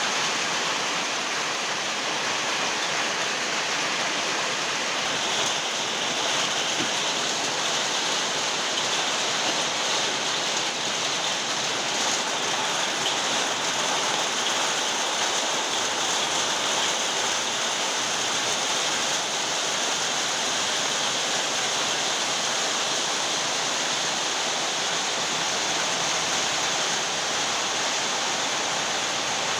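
Very heavy rain pouring steadily, a dense even hiss with no breaks.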